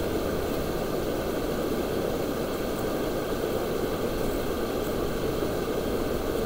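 Shallow river rapids rushing over rock ledges: a steady, even rush of water.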